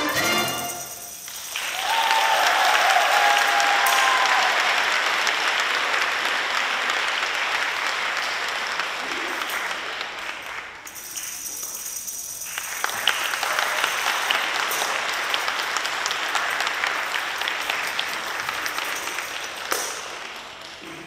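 The children's choir song ends on a last sung chord in the first second, and audience applause follows in a reverberant concert hall. The clapping dips briefly around the middle and fades out near the end.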